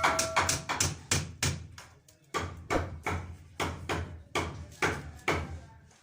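A rapid series of sharp knocks or bangs, about three a second, with a brief pause about two seconds in.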